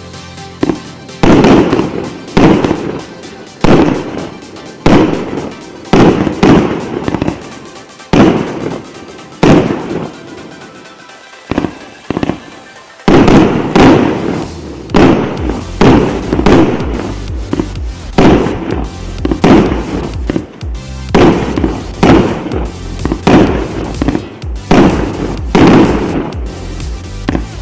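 Richter RBV-2971 fireworks cake, 297 shots of 1–1.2 inch calibre, firing: sharp bangs about once a second in the first half, then coming thicker and faster from about halfway in.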